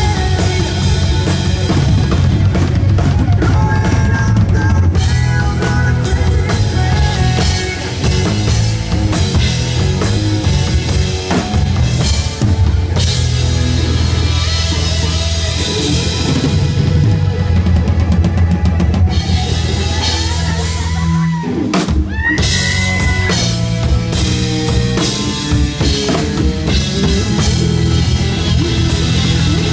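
Live rock band playing loud: drum kit, bass and electric guitar, with the electric guitar taking the lead. The band cuts out briefly about three-quarters through and comes back in with a bending guitar note.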